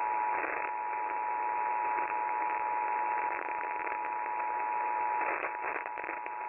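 Emergency Alert System two-tone attention signal, 853 Hz and 960 Hz sounded together and held steady, announcing that an emergency alert is about to be read. It comes through a radio broadcast with steady hiss and a few static crackles.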